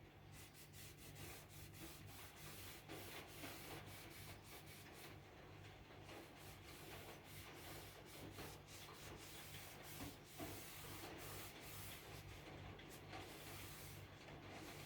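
Faint rubbing strokes on a wooden speaker cabinet, a few quick strokes a second with short pauses, as the veneer is worked by hand.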